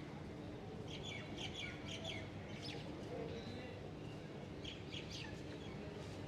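Small birds chirping: a quick run of short high calls, then a few more about five seconds in, over a faint steady hum.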